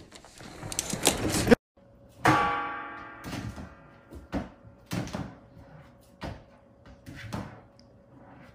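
A rattling noise builds and cuts off suddenly, then the swing lid of a stainless steel trash can knocks and clatters again and again as a golden retriever puppy paws at it.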